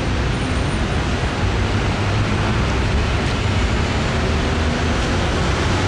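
Steady outdoor street noise: a rushing hiss over an unsteady low rumble, from wind on the camera microphone and city traffic.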